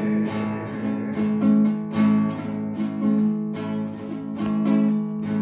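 Classical guitar strummed in repeated chord strokes, an instrumental passage with no singing.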